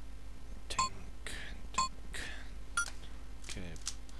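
A timer ticking once a second, four sharp ringing clicks, with softer hissing sounds between the ticks.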